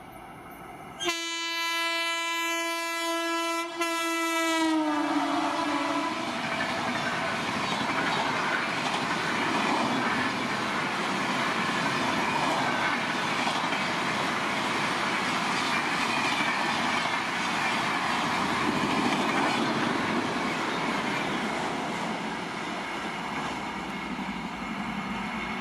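Electric locomotive horn sounding one long blast about a second in, its pitch dropping as it ends while the train passes at speed. Then the express train rushes by with continuous wheel clatter and rattling coaches.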